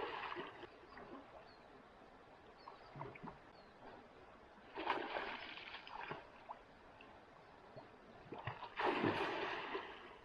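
A person swimming in a creek: three splashes of water, about four seconds apart, over faint running water.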